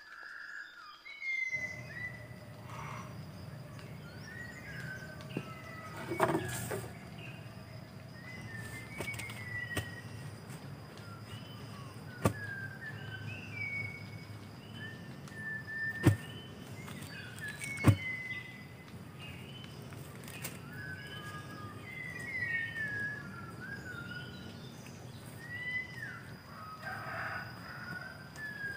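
Small birds chirping over and over with short whistled notes, over a steady high-pitched tone. A few sharp knocks come in the middle stretch as a bamboo pole is set upright in a freshly dug hole.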